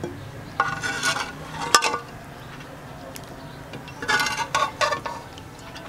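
A steel ladle clinking and scraping against the inside of a steel cooking pot as curry is ladled out. It comes in two spells of ringing knocks, one in the first two seconds and another about four seconds in.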